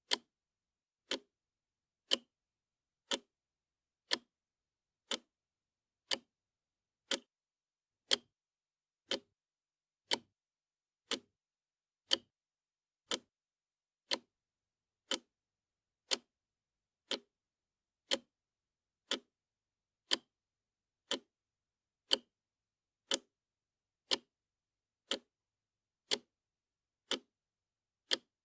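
Wall clock ticking steadily, one sharp tick each second with silence in between.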